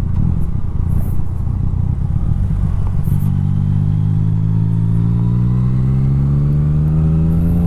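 Yamaha Tracer 900 GT's three-cylinder engine pulling away under throttle. A rough rumble at first, then from about three seconds in a steady drone that rises slowly in pitch as the bike accelerates.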